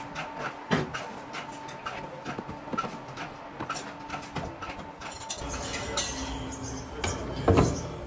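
Workshop noise: irregular clicks and knocks, with a steady low hum coming in about five seconds in and one louder scrape or knock near the end.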